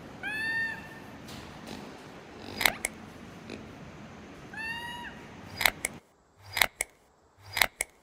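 Ring-tailed lemur giving two short meow-like calls, about four and a half seconds apart, with sharp clicks in pairs between and after them.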